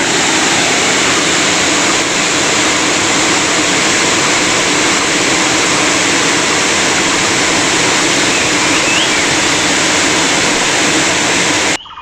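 A waterfall in heavy rainy-season flow, pouring over granite boulders into a pool: a steady, loud rush of water. It breaks off abruptly for a moment near the end.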